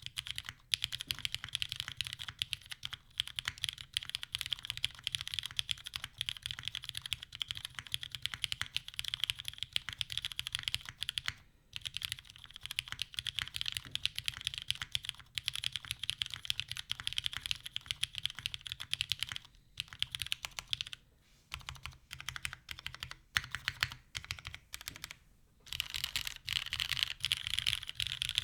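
Continuous fast typing on a TGR Jane V3 custom mechanical keyboard: a dense run of keystroke clacks from lubed, filmed retooled Cherry MX Black linear switches under GMK keycaps, on a top-mounted full aluminium plate with no foam. The typing breaks off for a few brief pauses, mostly in the later part.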